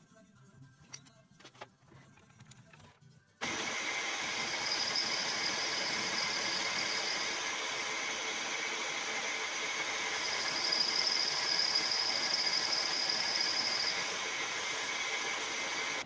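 Milling machine spindle running with an end mill cutting into a metal ring part: a steady machining noise with a high whine that starts suddenly about three and a half seconds in, the whine growing stronger twice during the cut. Before it, a few faint clicks from hands setting up the part.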